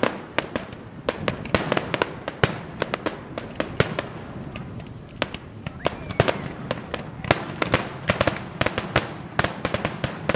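Fireworks finale: a dense barrage of aerial shell bursts, several sharp bangs a second over a continuous noisy bed.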